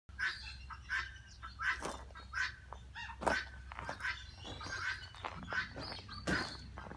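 Short bird calls repeating at irregular intervals, over a steady low hum.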